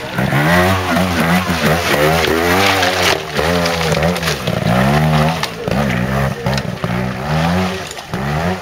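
Trials motorcycle engine revving up and down in short throttle blips as the bike climbs a rocky, wet section, the pitch rising and falling about once a second.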